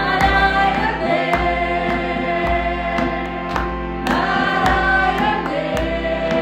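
Background music: a choir singing long held notes over a slow, steady beat of about one stroke a second.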